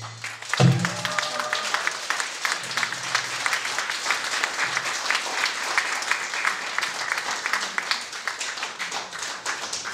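Audience applauding, a dense patter of many hands clapping. It opens with one last low drum stroke just over half a second in.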